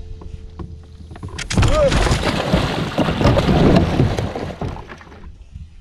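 A person falling from a kayak into the water: a loud splash about a second and a half in, then several seconds of splashing and thrashing that die away near the end.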